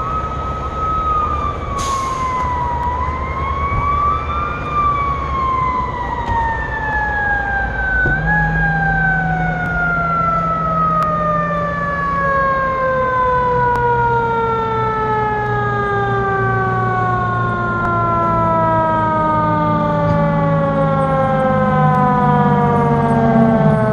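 Federal Q2B mechanical fire siren winding down. Its wail dips, is pushed back up once about four seconds in, then falls slowly and steadily in pitch as the rotor coasts down. A low steady drone joins about eight seconds in.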